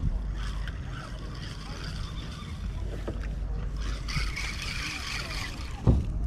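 Wind buffeting the microphone in a steady low rumble, with a single sharp knock near the end.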